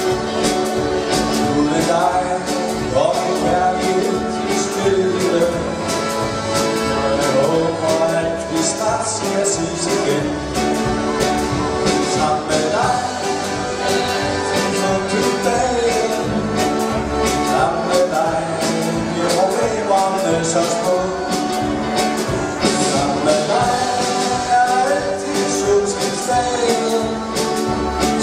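Accordion orchestra playing live dance music: several accordions with guitar and a drum kit keeping a steady beat.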